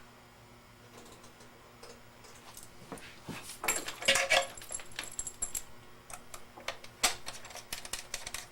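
A run of light clicks and taps from controls being worked on electronic bench test gear, busiest in the middle and again near the end. A faint high tone sounds for about two seconds in the middle.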